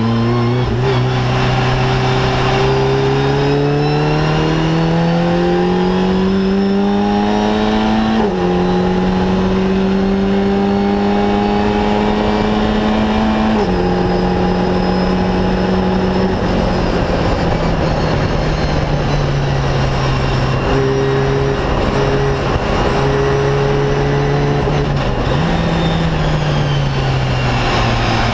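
Fun Cup race car's engine heard from inside the cockpit, pulling up through the revs with upshifts about 8 and 14 seconds in. It then eases off as the car slows, with a short jump in pitch near the end as it changes down.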